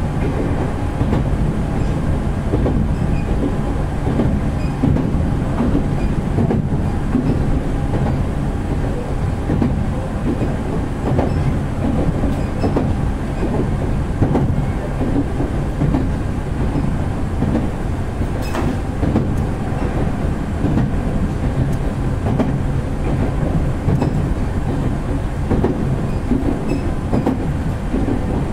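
Toyohashi Railway 1800-series electric train running along the line, heard from inside the car: a steady rumble of wheels on rail with a low motor hum and occasional faint clicks.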